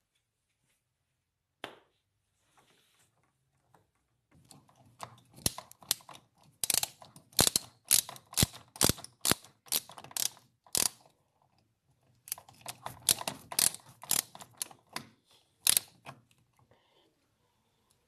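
Screwdriver tightening the screw of a metal hose clamp on a dishwasher hose, with rapid, uneven clicking. The clicking comes in two bouts, the first starting about four seconds in and the second after a short pause.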